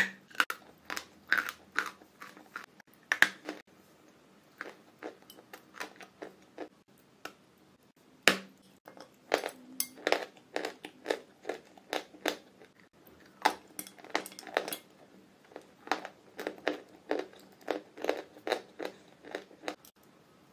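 Close-up biting and chewing of a lump of purple chalk paste: irregular sharp crunches and wet mouth clicks, sometimes several a second, with the loudest bites near the start and about three and eight seconds in.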